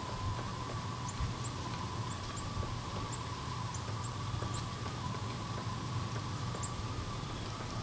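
Outdoor ambience: a steady low rumble and a faint steady hum, with about eight short, very high chirps scattered through.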